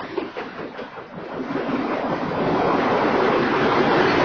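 Freight train of covered hopper cars rolling past: a few wheel clacks over the rail joints in the first second, then a loud, steady rushing noise swells up from about a second and a half in.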